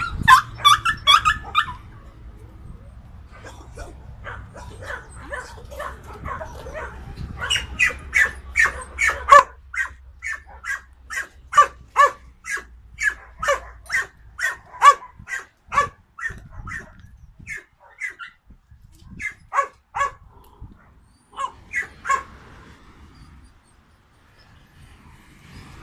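A dog barking repeatedly: a short flurry of barks at the start, then a long run of barks, quickest at first and then about one or two a second, from about eight seconds in, thinning out and stopping a few seconds before the end.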